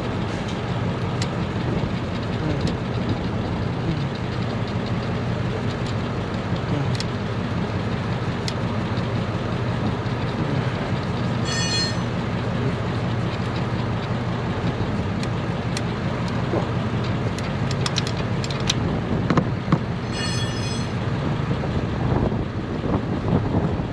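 A steady low mechanical hum and rumble, with scattered faint clicks of a hand ratchet working at fuel-rail bolts on a 6.0 Powerstroke diesel. Two short high-pitched chirping bursts come about halfway through and again near the end.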